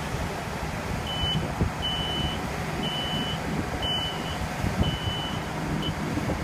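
Telehandler warning beeper giving five or six short high beeps, about one a second, starting about a second in and stopping near the end, over the steady running of the machine's diesel engine.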